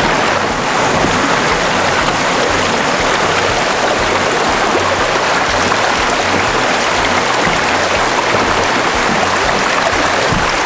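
Shallow river rapids rushing over rocks: a loud, steady rush of fast-moving water.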